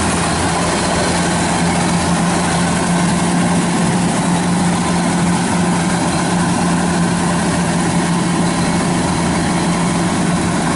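Kubota DC-93 rice combine harvester running steadily under load as it cuts rice in a flooded paddy: an unbroken engine drone with a strong steady hum over dense machinery noise.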